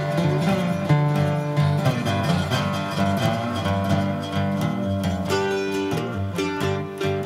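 Background music: plucked acoustic guitar playing a steady tune.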